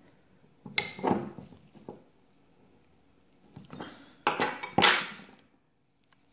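Chrome ratchet, socket and aluminium AN wrench clinking as they are handled and set down on a table: sharp metallic clinks in three clusters, about a second in, near four seconds and, loudest, near five seconds.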